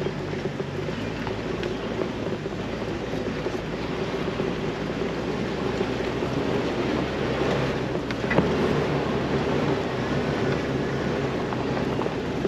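Jeep Wrangler TJ engine running at low speed as it crawls down a rocky off-road trail, with steady rumble and tyre-on-rock noise and a few small knocks. About eight seconds in the engine note changes and a sharper knock sounds.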